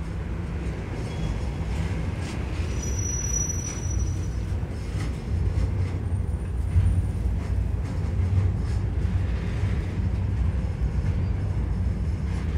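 Freight train rolling past: a steady low rumble with a few faint clicks from the wheels and cars.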